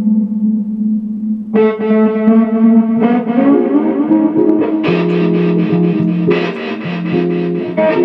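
Electric guitar played through the Howler feedbacking tremolo pedal: a sustained note, with new tones piling on about a second and a half in and again at three seconds. From about five seconds in the sound turns choppy, stuttering on and off.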